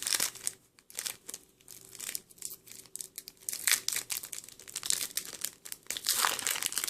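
Foil trading-card booster pack wrapper crinkling as it is handled and torn open by hand, a string of irregular crackles.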